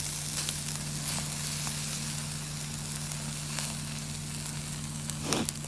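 Yakitori chicken skewers sizzling as they grill over a fire: a steady hiss of cooking fat with scattered small pops and crackles, and a few louder pops near the end.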